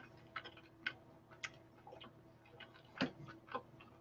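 Faint, irregular clicks and crunches of someone chewing a crisp pita-crust pizza close to the microphone, with a slightly louder crunch about three seconds in.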